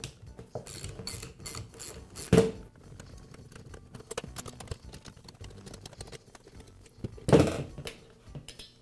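Hand-tool work on a roofing nailer's nose piece: small metal clicks and scrapes as the screws are undone with a hex key, and two loud metal clatters, about two and a half and seven and a half seconds in, of metal parts set down on a sheet-metal workbench.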